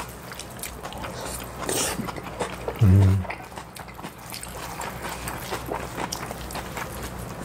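Close-miked eating of bibimbap: metal spoons click and scrape against ceramic bowls, with chewing and mouth noises. A short breathy noise comes about two seconds in, and a brief low hummed "mmm" about three seconds in.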